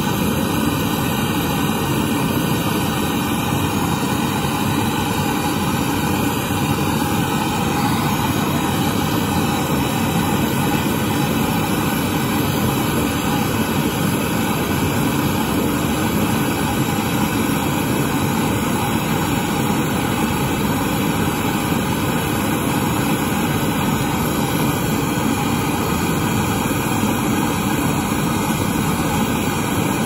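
Gas brazing torch flame burning with a steady, even rushing noise as it heats and brazes a copper tube joint on a refrigerator compressor.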